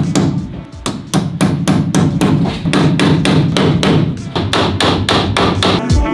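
Rapid, even hammer strikes, about four to five a second, nailing an electrical outlet box onto a wooden wall stud. Guitar music comes in near the end.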